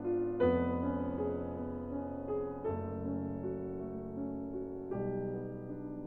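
Background music: piano or electric piano playing sustained chords, changing chord about every two to two and a half seconds.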